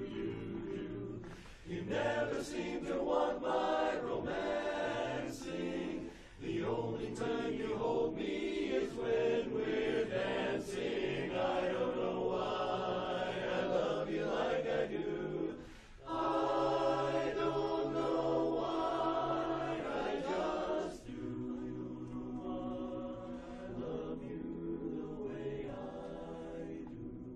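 Mixed barbershop chorus, men's voices with one woman's, singing a cappella in close four-part harmony. There are short pauses between phrases, and the singing grows softer over the last several seconds.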